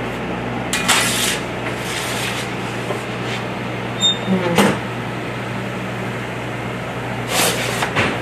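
Steady low hum of pizzeria kitchen equipment, with three brief scrapes and knocks as a pizza is worked out of a deck oven on a pizza peel: about a second in, midway, and near the end.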